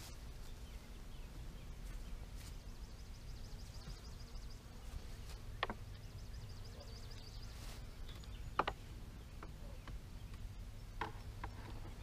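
A few separate sharp clicks and knocks, the loudest about two-thirds of the way in, from a ratchet strap and its buckle being fitted around a wooden beehive, over a low steady outdoor background with faint fast insect trilling in short runs.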